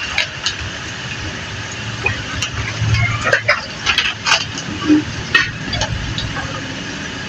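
A plastic packet crinkling and sliced bitter gourd being tossed by hand in a bowl: a string of short rustles and clicks, thickest in the middle, over a steady low hum.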